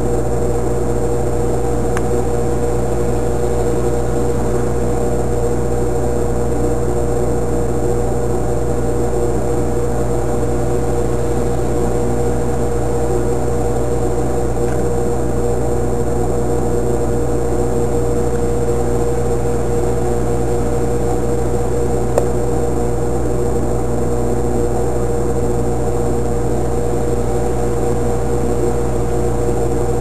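A loud, steady mechanical hum with a constant tone that does not change, and a single brief click about three-quarters of the way through.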